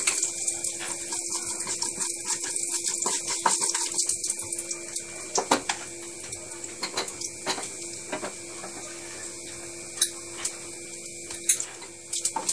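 Panch phoron seeds sizzling in hot oil in a wok: a steady hiss with frequent small crackles and pops as the tempering fries.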